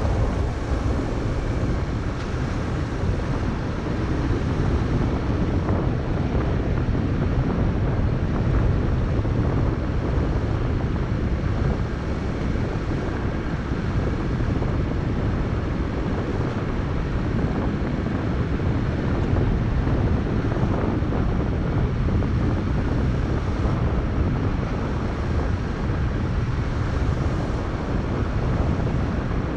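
Vehicle driving along a gravel road: a steady low rumble of tyres on gravel and running gear, with wind buffeting the microphone.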